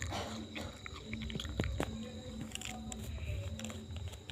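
Hands rubbing and pressing on skin in a traditional massage, making scattered soft clicks and squishing sounds.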